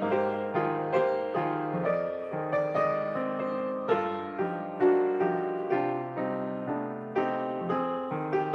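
Solo piano music, a gentle flowing melody of struck notes over sustained chords.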